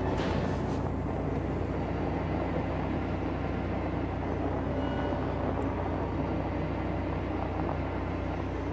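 Car engine and tyre noise heard from inside the cabin while driving, a steady low rumble, with a short burst of noise right at the start.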